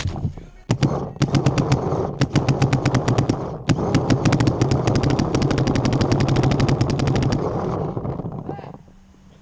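Paintball marker firing in rapid strings of sharp pops, about ten shots a second, with a short break partway through. The firing stops near the end.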